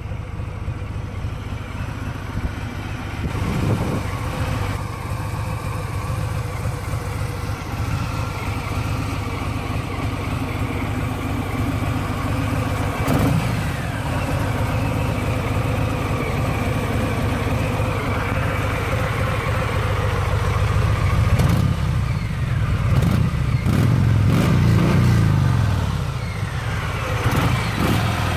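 2018 Harley-Davidson Sport Glide's Milwaukee-Eight 107 V-twin running through its stock exhaust, idling steadily and revved briefly a few times, most often in the last several seconds.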